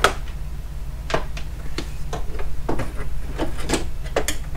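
Irregular clicks and knocks, about ten of them, as things are handled and shifted about in a tool cart while soldering irons are fished out, over a steady low hum.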